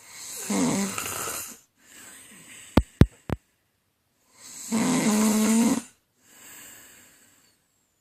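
A woman snoring in her sleep: two loud snores about four seconds apart, each followed by a softer breath. Three sharp clicks come in quick succession about three seconds in.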